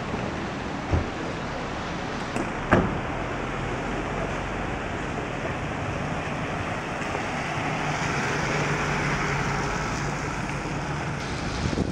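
Ambulance van driving past on a wet road with no siren: a steady hiss of tyres on wet pavement and a low engine note, swelling about eight seconds in as it comes close. Two short knocks, a sharp one near three seconds in.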